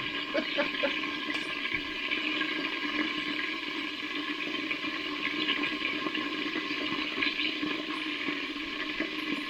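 Chicken frying in hot oil, sizzling and crackling steadily with small scattered pops.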